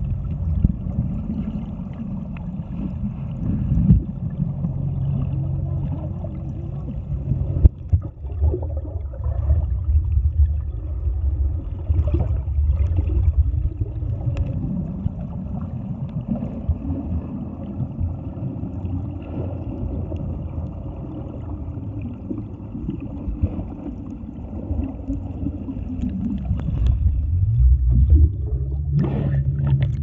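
Muffled underwater sound picked up by a submerged camera: a low, wavering rumble with gurgling and a few knocks, loudest near the end.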